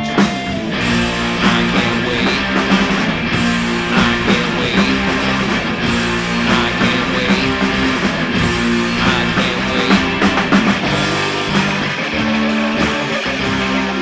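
Instrumental section of a rock song with no vocals: electric guitars strumming chords over a drum kit.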